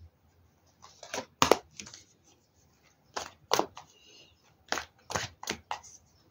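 Tarot cards being drawn from the deck and laid down on a table: a string of sharp, irregularly spaced snaps and taps, about ten in all.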